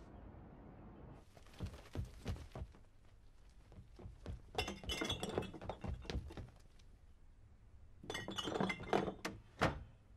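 Objects clinking, rattling and knocking together as they are rummaged through in a wooden box, with dull thuds. The clatter comes in two busy bursts, about four and a half and eight seconds in.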